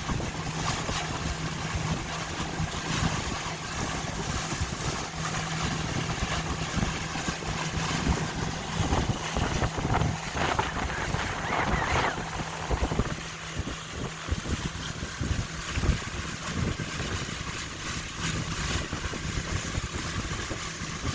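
Motorboat under way, the engine running under wind buffeting the microphone and water rushing past the hull; the engine's low steady tone fades about two-thirds of the way through.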